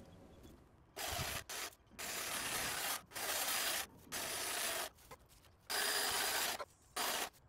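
Snapper HD 48V cordless hedge trimmer with its 24-inch steel blade cutting, heard as about seven short bursts of noise, each a second or less, that start and stop abruptly with brief near-quiet gaps between them.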